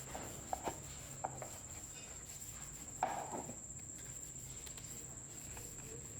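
A steady high cricket trill in the background, with a few light clicks near the start and a louder knock about three seconds in.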